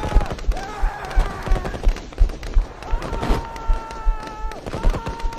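Music: long held melody notes that step from pitch to pitch, over quick, evenly spaced deep thuds.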